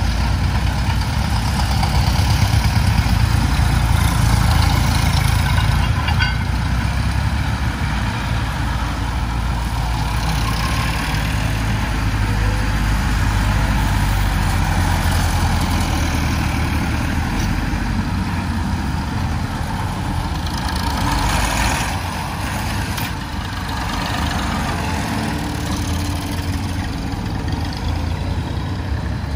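Vintage tractor engines running, a steady low engine throb that eases a little in the last third.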